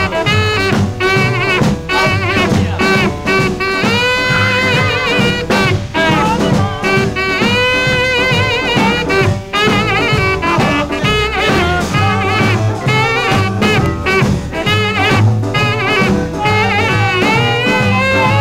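Swing-style band music: an instrumental break in a song, with horns playing held, wavering notes over a steady beat.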